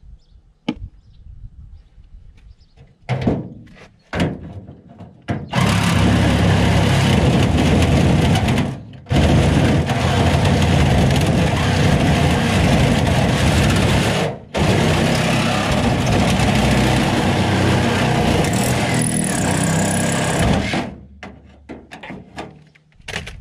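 Reciprocating saw cutting through the thin aluminum hull of an old rowboat. It runs loud and steady for about fifteen seconds, stopping briefly twice. A few short knocks come before the cut starts.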